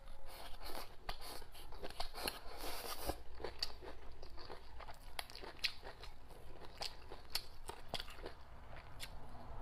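A person chewing braised chicken offal and green chilies, with crunchy bites and a steady run of sharp crackling clicks.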